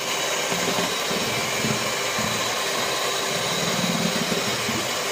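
Electric hand mixer running steadily, its twin beaters whipping eggs in a plastic bowl into a thick, pale foam for cake batter.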